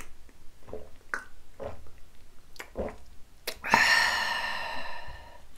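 A shot of soju being swallowed: a few small gulps and mouth clicks. Then, a little over halfway through, the drinker's long breathy, voiced 'kyaa' of satisfaction after the shot, fading out slowly.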